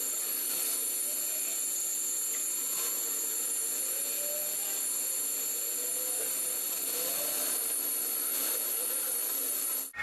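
Metal lathe running: a steady hiss with a high, steady whine over it. Just before the end it cuts off abruptly into a louder, different steady noise.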